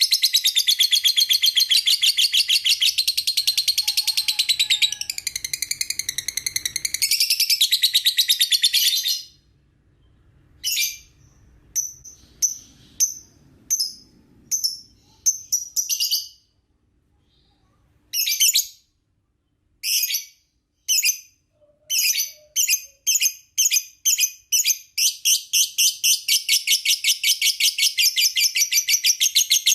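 Lovebird chattering in a long, rapid, high-pitched trill (the 'ngekek' song), breaking off after about nine seconds into separate sharp chirps with pauses, then speeding up again into a continuous trill near the end.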